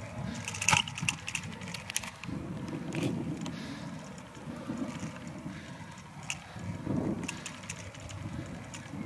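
Noise of a bicycle being ridden: an uneven low rumble with scattered clicks and rattles, the sharpest about a second in.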